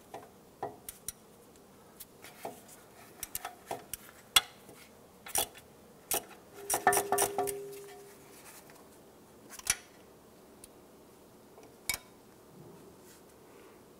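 Ratchet clicking and metal tools clinking while the 8 mm bolt holding an ABS wheel speed sensor is loosened on the steering knuckle. The clicks come irregularly, with a denser run of clatter about seven seconds in.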